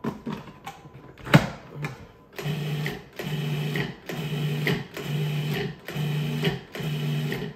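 Food processor pulsed repeatedly, about six motor pulses of under a second each with short gaps, chopping basil, parsley, nuts and garlic into a coarse pesto paste. Before the first pulse come a few clicks and one sharp knock.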